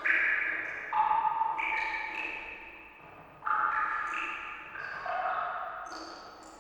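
Water drops plinking one after another, about seven in all at uneven intervals, each a clear pitched ping that rings and fades slowly, as if echoing.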